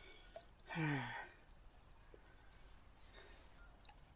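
A man's breathy sigh, falling in pitch, about a second in. Otherwise only faint ticks.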